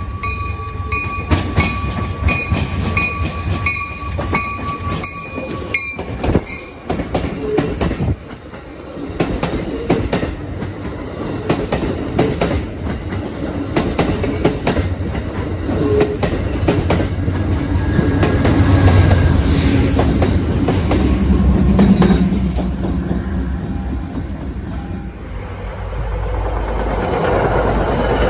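A train passing, its wheels clicking over rail joints above a steady low rumble. Steady ringing tones with a regular pulse run through the first six seconds.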